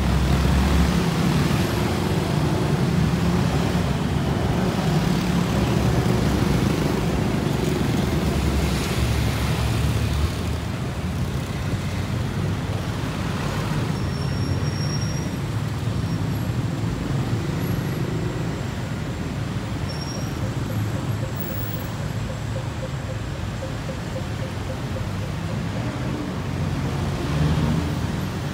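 City street traffic: a steady rumble of cars, vans and motorbikes running close by, a little louder in the first ten seconds or so.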